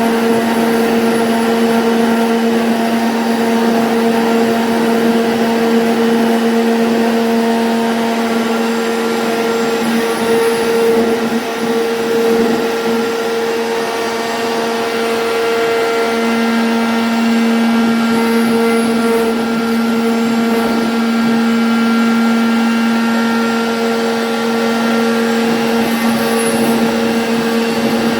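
CNC router spindle running at a steady speed while cutting a 2D jali pattern in MDF: a constant motor whine over cutting noise. The lower part of the whine fades for a few seconds in the middle, then comes back.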